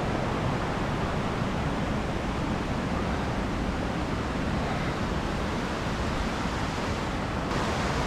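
Steady rushing of a waterfall: an even, unbroken hiss of falling water.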